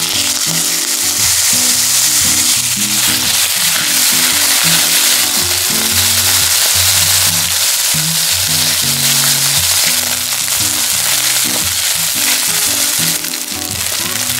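Chopped chicken sizzling in hot cooking oil in a nonstick wok, a loud, steady frying hiss. Near the end sliced eggplant and green onion go into the pan and the sizzle turns brighter.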